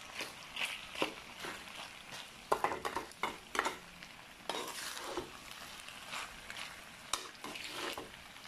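A slotted metal spatula stirring and scraping macaroni in tomato sauce around a metal pan, with irregular scrapes and clinks, over a light sizzle of the sauce frying.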